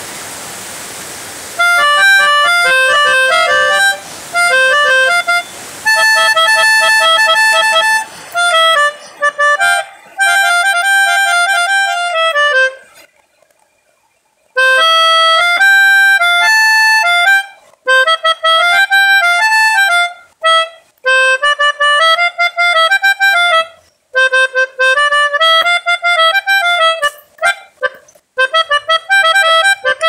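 Pianika (melodica) played in short repeated phrases of quick notes, imitating the 'telolet' bus horn tunes, with a pause of about a second and a half partway through. A steady hiss is heard before the playing starts.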